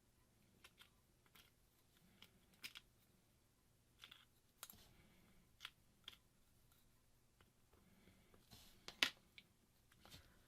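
Faint, scattered clicks and taps of small phone parts and tools being handled while reassembling a Google Pixel, the loudest a little before the end.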